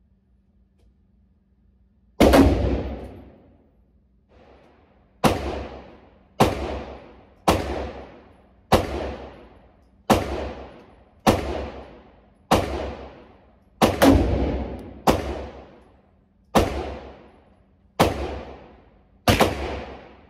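Gunshots, about thirteen of them, roughly one a second starting about two seconds in, each followed by a ringing tail of about a second. The first shot is the loudest.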